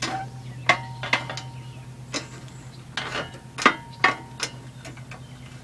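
Old Briggs & Stratton mower engine running steadily at half throttle, with about eight sharp metallic clicks and clanks at irregular intervals from the mower's drive control lever and cable, which is seized.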